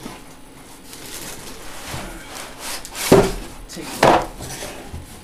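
Cardboard box flaps and packing material being handled: a low rustling and scraping, with two sharp scraping knocks about three and four seconds in.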